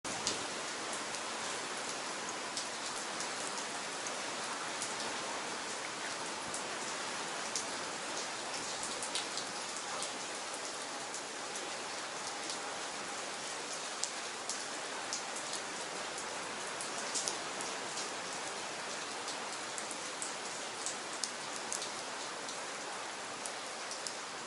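Steady rain falling, an even hiss with many distinct drops hitting close by.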